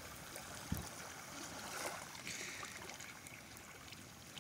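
Wood campfire burning, with faint crackling and small pops, and a soft knock a little under a second in.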